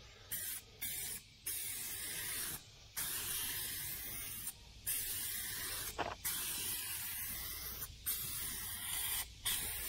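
Aerosol spray can of SEM Flexible Coating hissing in a run of sprays, with short breaks every second or so as the nozzle is let off.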